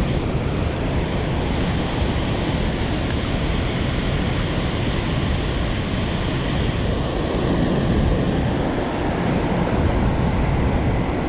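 Steady roar of heavy water pouring from the dam's release gates, a dense rushing noise.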